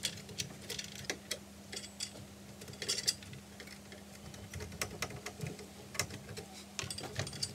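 Irregular small clicks, taps and rustles of stranded electrical cables being pushed into a power diverter's terminal block and a screwdriver working the terminal screws.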